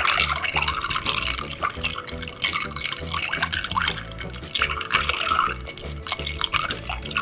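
Bar spoon stirring ice cubes briskly in a glass of cocktail mix, back and forth: ice clinking and rattling against the glass with the slosh of liquid.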